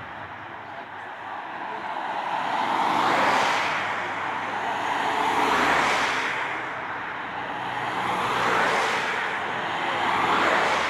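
Tour de France team cars, spare bikes racked on their roofs, passing close by one after another. Four swells of engine and tyre noise, each rising and then falling away.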